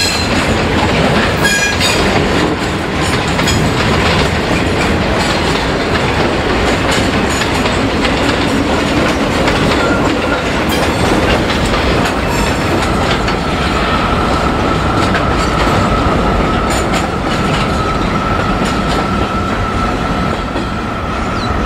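Freight train wagons, steel-coil carriers and open box wagons, rolling past close by: a steady heavy rumble with wheel clatter. A little over halfway through, a steady high-pitched wheel squeal joins in and holds until near the end as the last wagons go by.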